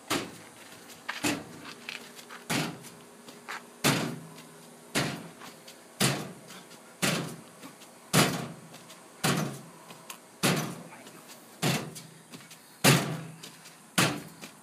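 Repeated box jumps: a barefoot boy landing on a jump box, one sharp thud about every second and a bit, about thirteen in a row, each with a brief low ring after it.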